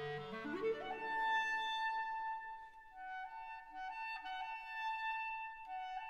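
Instrumental background music: a quick rising run of notes, then a slow melody of long held notes.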